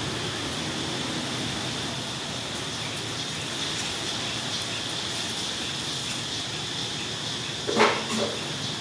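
Steady outdoor background hiss with a constant high-pitched whine. Near the end comes one short, loud pitched call in two quick parts.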